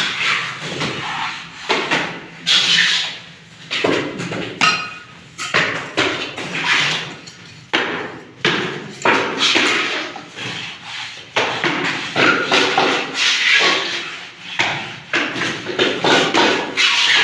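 Masons' hand tools at work on a wall being plastered: irregular knocks and taps with scraping in between, several to a few seconds apart.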